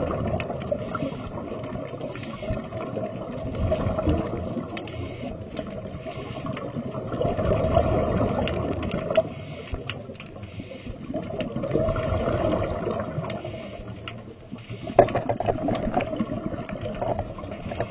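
Sea water washing in small waves, swelling and ebbing every few seconds, with light clicks and scrapes scattered through it.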